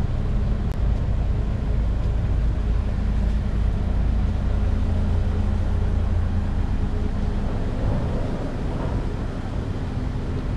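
A motor vehicle's engine running close by: a steady low rumble that eases off a little in the last few seconds.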